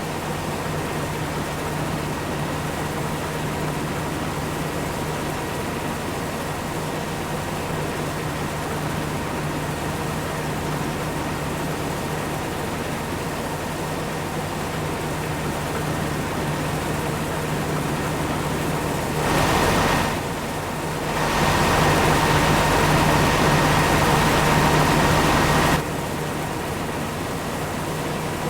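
Heavy farm machinery engine running steadily with a constant low drone. About two-thirds of the way in, a louder rushing noise comes in briefly, then again for about four seconds before cutting off suddenly.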